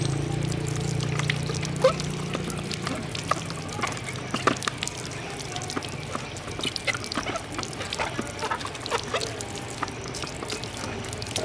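Water pouring and trickling, with scattered clicks and small knocks throughout and a low hum that fades in the first few seconds.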